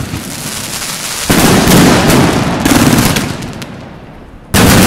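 Consumer fireworks going off in a dense barrage of rapid crackles and bangs. It gets louder about a second in, fades, then comes back suddenly loud near the end.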